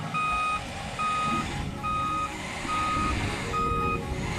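Pickup truck's reversing beeper beeping evenly, five beeps a little under a second apart, over the low rumble of its engine as it backs up.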